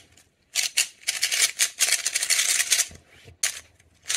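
MoYu RS3M 3x3 speed cube being turned quickly by hand: its plastic layers clatter in fast runs of turns. The longest run lasts about two seconds, with another starting near the end.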